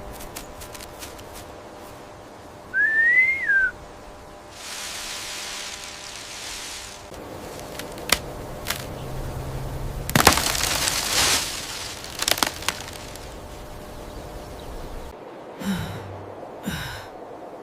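Cartoon sound effects: a short whistle that rises and then falls, followed by gusts of rushing noise, the loudest about ten seconds in, with a few sharp knocks between them.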